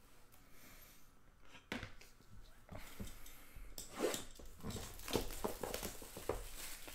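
Cellophane shrink wrap being torn and peeled off a sealed trading-card box. It starts with a few scattered crackles about two seconds in, then turns into busier crinkling and rustling for the last few seconds.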